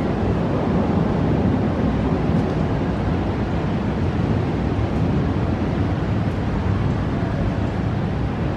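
Steady, even noise of a thunderstorm over a city, with no distinct thunderclap, weighted toward the low end.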